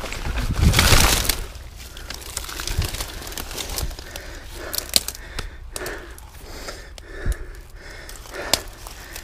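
Mountain bike crash on a dirt trail: a loud rush of the bike and rider going down through brush about a second in, followed by scattered clicks and rustling of the bike and rider on the ground, with the rider breathing hard.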